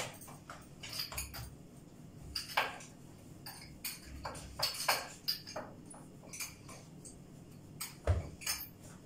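Light, irregular knocks and clinks of kitchen utensils on a countertop as pizza dough is rolled out, with one heavier thump about eight seconds in.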